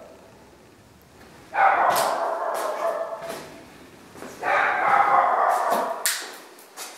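A dog barking in two long bouts, the first about a second and a half in and the second near the middle, with a few sharp clicks.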